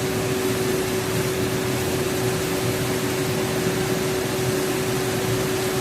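Steady machine whir with a constant mid-pitched hum, from equipment running during a coolant exchange service on an engine.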